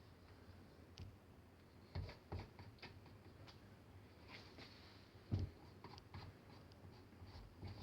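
Faint, scattered clicks and light scrapes of a palette knife working melted white chocolate into a flexible 3D printed plastic mold.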